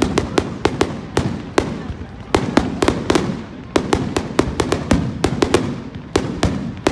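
Fireworks going off in a rapid, irregular string of sharp bangs and pops, several a second, each with a short echo.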